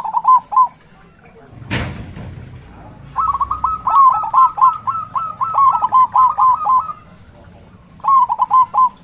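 Zebra dove (perkutut) singing its rapid run of short staccato coos: a brief phrase at the start, a long phrase of about four seconds from about three seconds in, and another brief phrase near the end. A single sharp thump comes just under two seconds in, and faint high chirps sound throughout.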